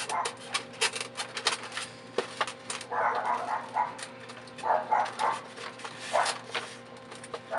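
Plastic packaging and wire ties being handled and pulled loose while an RC helicopter is freed from its box: a quick run of clicks and crinkles, with a few short squeaky sounds around the middle and towards the end.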